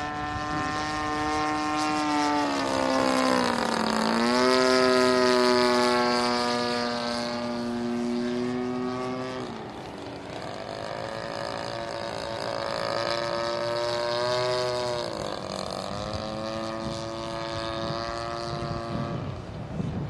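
Model airplane engine and propeller of a Seagull Edge 540 RC aerobatic plane in flight, running steadily. Its pitch dips and comes back up twice, about four seconds in and again about fifteen seconds in. It is loudest a few seconds in.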